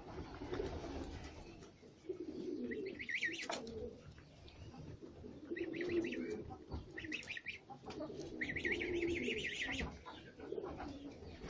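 Pigeons cooing in repeated low phrases, with small birds chirping in short rapid trills between and over them.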